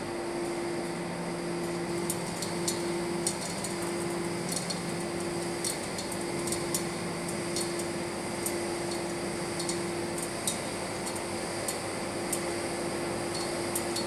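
Steady machinery hum inside a telescope dome: an even fan-like noise carrying a steady low tone, with faint irregular high ticks scattered through it.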